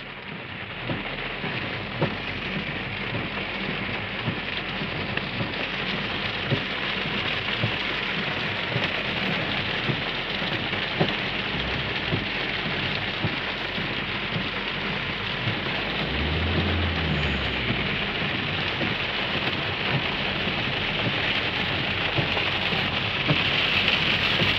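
Heavy rain pattering on a car's roof and windshield, heard from inside the cabin as a dense, steady patter of drop ticks. A brief low rumble comes about two-thirds of the way through.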